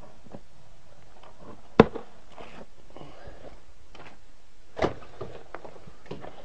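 Two sharp knocks about three seconds apart, among quieter scattered clicks and scrapes.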